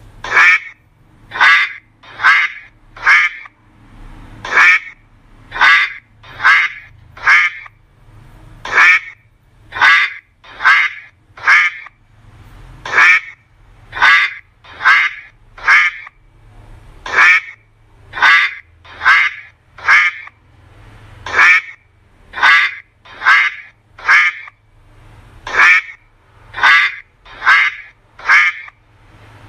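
Duck quacking over and over, a little more than one quack a second, in runs of three or four quacks with brief pauses between the runs.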